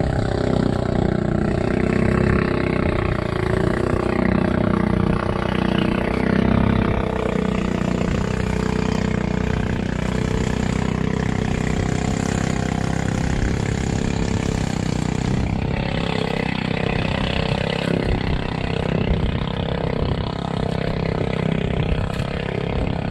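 Small outrigger boat's engine running steadily, with wind and water noise.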